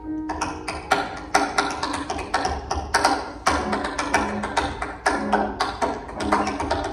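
Tap dancer's shoes striking a wooden tap board in quick, irregular rhythmic strings of taps, with a grand piano accompanying. The piano holds a note at the start and sounds a low note about once a second in the second half.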